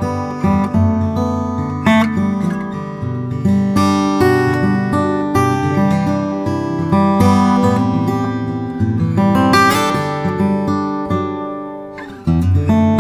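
Background music: plucked acoustic guitar playing a melody. The phrase fades away about eleven seconds in, and a new one starts loudly just after.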